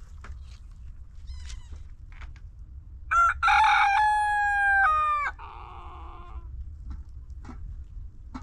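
A rooster crowing once, about three seconds in: a short opening note, then a long held call of about two seconds that drops in pitch as it ends. It sounds over a low background rumble and a few faint clicks.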